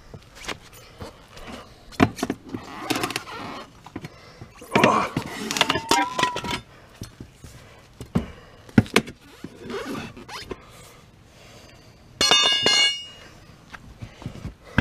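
Steel tire iron clanking and scraping against an ATV wheel's steel rim and rubber tire while prying at the bead: a string of sharp knocks with a longer scrape in the middle and a short high squeal near the end.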